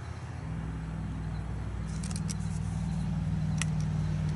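A steady low engine-like hum starts about half a second in and grows slightly louder, with a few small clicks around the middle.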